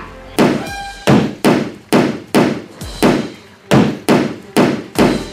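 A rapid series of about ten sharp knocks, roughly two a second, each dying away quickly.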